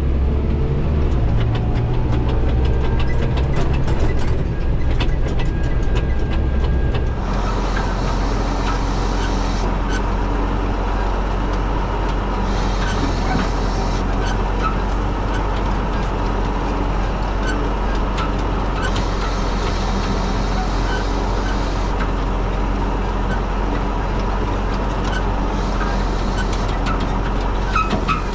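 Farm machine's engine running steadily, its note dropping and settling about seven seconds in, with rattling early on and a hiss that comes and goes several times.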